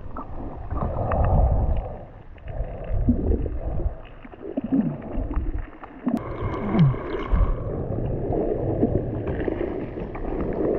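Muffled underwater water noise picked up by a camera held below the surface in shallow water: rumbling and gurgling that swells and falls as the camera moves through the seagrass, with scattered small clicks and a couple of short falling squeaks.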